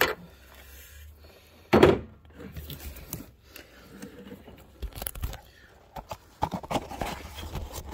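Hand tools being handled and set down: a dull thunk about two seconds in, then scattered light knocks and clicks.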